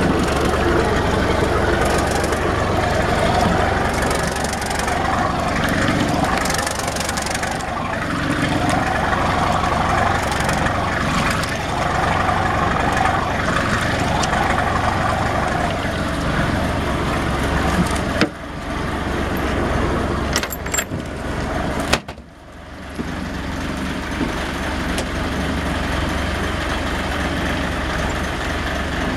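Yanmar marine diesel engine idling steadily, its propeller churning the water in the drive well. Two sharp knocks come in the middle.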